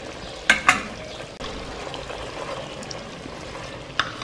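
Chicken curry sizzling steadily in a metal pot on the stove. A utensil knocks sharply against the pot twice about half a second in and once more near the end.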